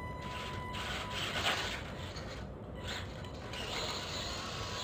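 Small electric RC crawler truck driving, its motor and gears whirring and rubbing in uneven spurts, with a thin high whine in the first second.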